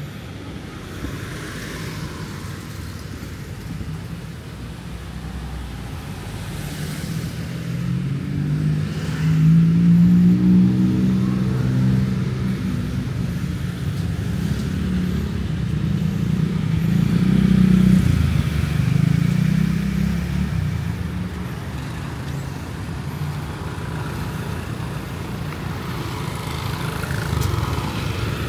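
Street traffic: motor vehicles passing close by, their engine hum swelling and fading twice, about a third of the way in and again past the middle, over a steady rumble of traffic.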